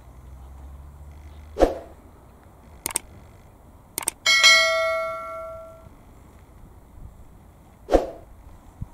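Subscribe-button animation sound effects: a short hit, two pairs of mouse clicks, then a notification-bell ding that rings out for about a second and a half, and another short hit near the end.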